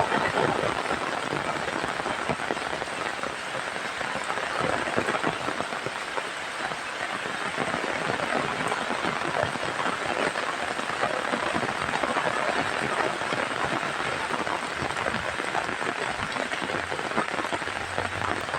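Heavy rain falling steadily: a dense, even hiss of countless drops.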